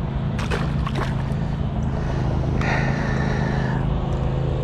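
Steady low motor hum with a few fixed tones running underneath. About half a second in comes a short splash as a small crappie is dropped back into the river. Near the middle there is a brief high whine lasting about a second.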